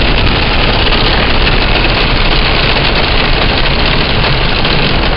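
Heavy rain with hail mixed in hitting a car's roof and windshield, heard from inside the moving car: a loud, steady, dense patter of small impacts.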